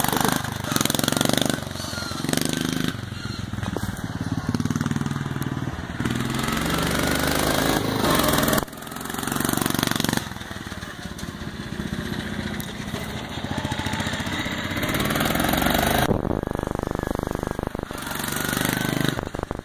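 Homemade racing lawn mower's engine revving hard as it accelerates over rough dirt, easing off and picking up again several times, with a steady chugging near the end.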